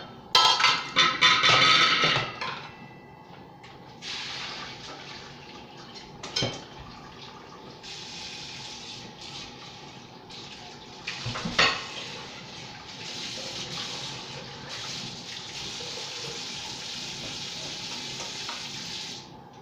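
Water running from a kitchen tap into a sink as a steady hiss, after a louder splashing clatter at the start, with a couple of knocks; the tap shuts off suddenly near the end.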